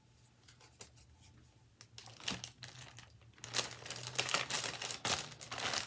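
A bag crinkling and rustling as items are handled. It starts with a few faint crackles and turns louder and denser about halfway through.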